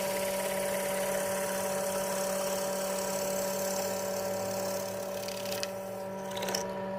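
Small electric power tool running steadily at constant speed, a steady motor hum with a hiss over it.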